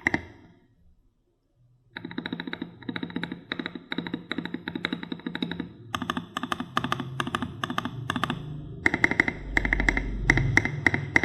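Typing on a Keydous NJ68 mechanical keyboard with a brass plate and modded Gateron Black Ink v2 switches: rapid key clacks that stop soon after the start and pick up again about two seconds in. The sound of the typing changes around six seconds in and again around nine seconds in.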